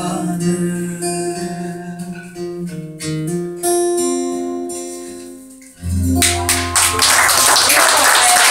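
Acoustic guitar and a three-course Greek bouzouki (trichordo) play the closing notes of a song, the last notes ringing and fading away. About six seconds in there is a sudden loud onset, and clapping and applause follow.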